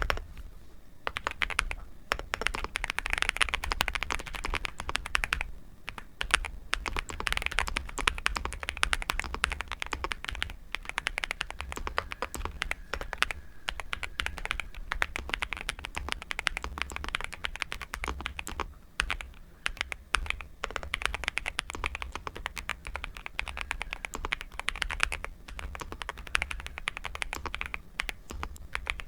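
Nuphy Gem 80 mechanical keyboard being typed on quickly: a dense, continuous clatter of keystrokes, with short pauses between bursts of typing.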